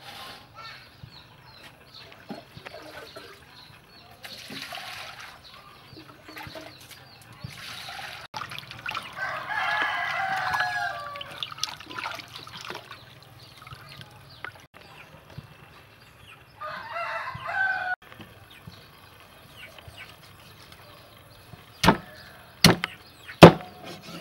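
Water splashing as a whole raw chicken is rubbed and rinsed by hand in a steel bowl, with a rooster crowing in the background, one long call midway and a shorter one later. Near the end a cleaver chops three times into the chicken on a wooden chopping board, the third strike the loudest.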